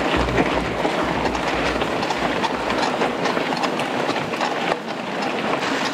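Mountain bike, a Coluer Poison SL, rolling over a rough dirt trail: the frame and components rattle with many sharp knocks over tyre noise. A low rumble fades out after about two and a half seconds.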